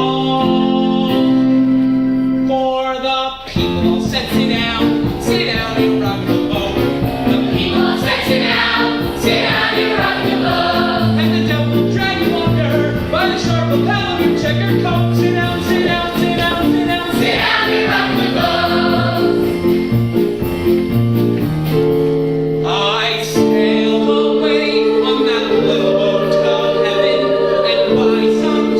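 Live stage musical number: an ensemble of voices singing in chorus with instrumental accompaniment, growing louder about 23 seconds in.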